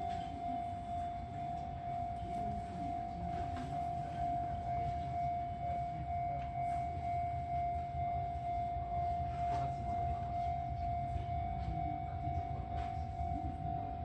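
Shin-Keisei 80000 series electric train standing powered at the platform: a steady single-pitched whine over a continuous low hum from its equipment.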